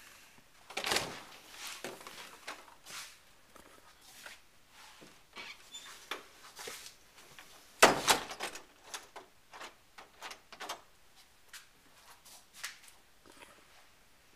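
Scattered knocks and clatters of things being handled or moved, with the loudest about a second in and another near eight seconds in, and lighter clicks in between.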